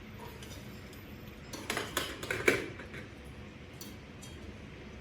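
A short run of clicks and clattering knocks from hard objects being handled, with the loudest knock about two and a half seconds in and a couple of faint ticks after.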